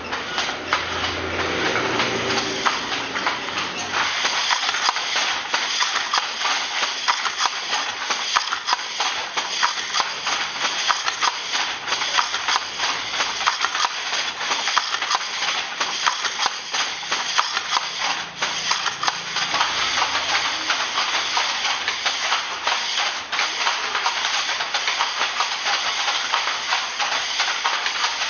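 Wooden handlooms working: a steady, dense clatter of clicks and knocks from shuttles and beaters over a constant hiss.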